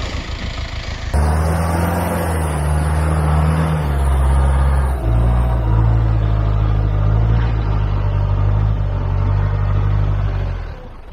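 Land Rover engine running hard under load as the 4x4 climbs out of a slippery, muddy rut; its revs shift in steps around four and five seconds in and drop away near the end. A quieter engine sound fills the first second.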